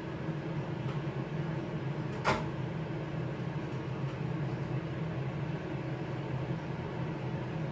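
Aicook air fryer oven running with a steady low hum while it preheats. One sharp clack about two seconds in.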